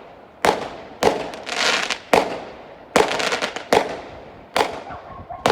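Fireworks going off: a run of about seven sharp bangs, roughly one a second, some followed by fizzing crackle.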